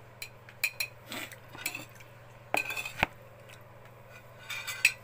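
Metal cutlery clinking and scraping against a plate while eating: scattered clicks, with a denser run of clinks around the middle and another near the end.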